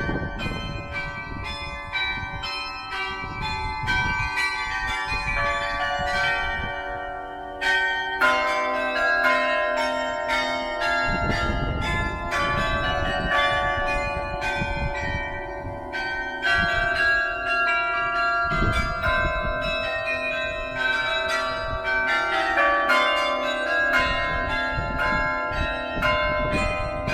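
St Pierre Cathedral's carillon playing a tune: many tuned bells struck in quick succession, each ringing on under the next, with deeper notes coming in louder about eight seconds in.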